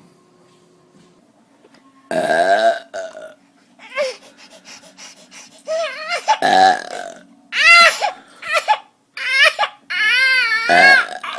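Loud human burps: one long burp falling in pitch about two seconds in, and more in the second half. They are answered by a baby's short, high-pitched wailing cries, each rising and falling.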